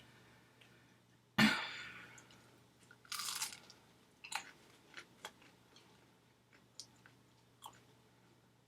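A person biting into and chewing a McDonald's chicken nugget close to the microphone. There is a loud crunchy bite about a second and a half in and another crunch around three seconds, then quieter, scattered chewing clicks.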